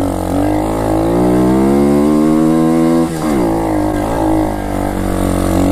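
Stomp Demon X 125 pit bike's single-cylinder four-stroke engine pulling under throttle, its pitch climbing steadily for about three seconds. The pitch then drops sharply, and the engine carries on at varying throttle.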